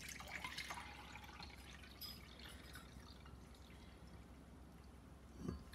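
Faint dripping and trickling of water into a glass measuring jug, with a few light ticks in the first couple of seconds.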